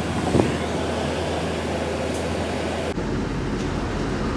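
Steady rumble and hiss of a car on the move, heard from inside the cabin. A brief knock comes about half a second in, and the noise changes abruptly about three seconds in.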